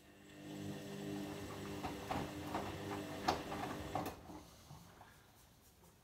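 Bush WMNB712EW washing machine turning its drum during a rinse: the motor hums up, water and wet laundry slosh and thud inside the drum, and the drum winds down and stops about four seconds in.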